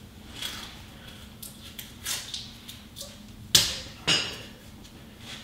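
Hand tools and parts being handled: scattered light clicks and taps, with two sharper knocks about half a second apart a little past halfway.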